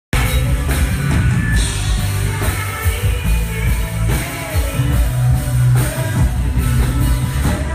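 Live rap performance: a loud backing track with a heavy bass beat and the rapper's voice over it, picked up by a phone's microphone in the crowd.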